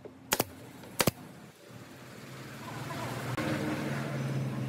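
Pneumatic brad nailer firing twice into pine trim, two sharp shots about two-thirds of a second apart in the first second. From about two seconds in, a motor vehicle's engine grows louder and then runs steadily with a low hum.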